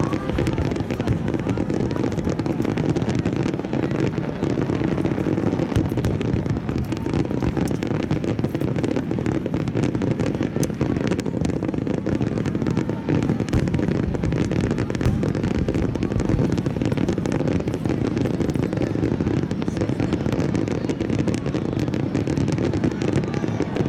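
Aerial firework shells launching and bursting in quick succession: a dense, unbroken barrage of booms and crackling with no pauses.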